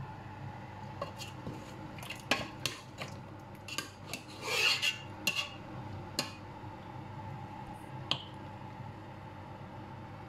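Steel ladle clinking and scraping against a steel cooking pot and a ceramic bowl as stew is served out: scattered sharp knocks, a longer scrape about halfway, and one last clink near the end.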